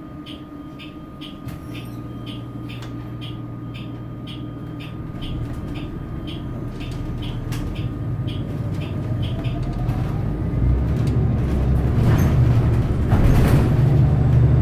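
Inside a San Francisco Muni bus pulling away and accelerating: the drive noise grows steadily louder, with a rising whine about ten seconds in. A steady ticking, about two or three a second, runs through the first nine seconds or so.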